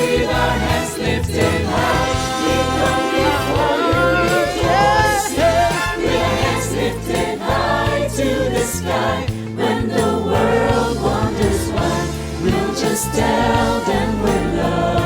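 Church choir singing a worship song with instrumental accompaniment.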